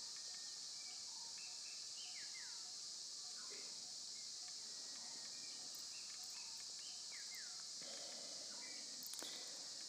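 Outdoor ambience: a steady high-pitched insect drone with faint bird calls over it, including a short downward-sliding whistle twice.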